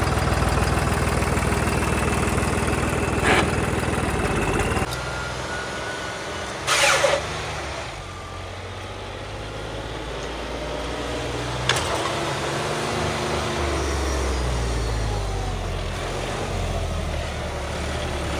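Vehicle engine running hard, then cutting back abruptly about five seconds in to a quieter, changing engine note that climbs again later on. A short loud burst of noise comes around seven seconds, with a sharp click twice.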